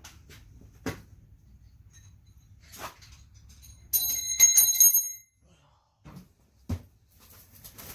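Metal engine parts clinking, with a bright ringing clatter of repeated metal strikes for about a second near the middle and a few lighter knocks around it.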